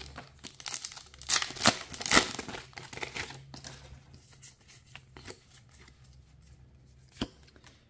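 A foil trading-card booster pack being torn open, its wrapper crinkling for the first few seconds, then quieter handling of the cards with a single click near the end.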